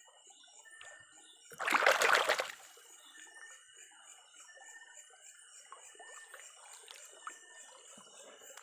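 A hand splashing up out of shallow river water about two seconds in, a burst lasting about a second, over the faint trickle of the stream.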